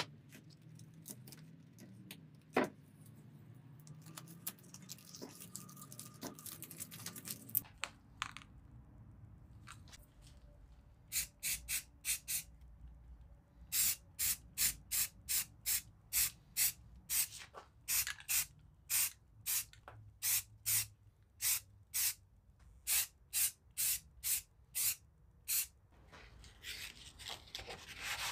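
Hand-sanding strokes in a steady rhythm, about two to three a second, with short pauses between runs, starting about eleven seconds in; before that, faint handling clicks and rustles.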